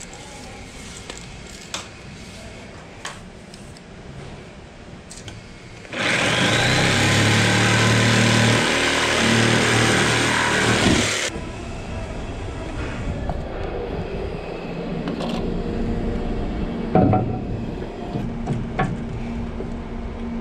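Corded electric jigsaw cutting through a wooden board. It starts about six seconds in, runs loud for about five seconds, and stops suddenly. Before it there are light taps and handling sounds; after it comes a quieter, steady hum with a few knocks.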